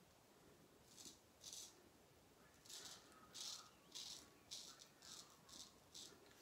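Razor blade scraping through lathered stubble in short, quiet strokes: two strokes, then from about three seconds in a quicker run of roughly two strokes a second.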